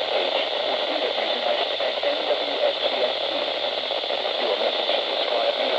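Steady radio static hiss with a low hum underneath; the hum drops out for a moment about a second in.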